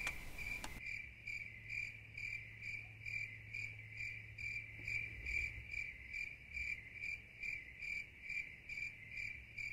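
Crickets chirping in a steady rhythm, about three chirps a second.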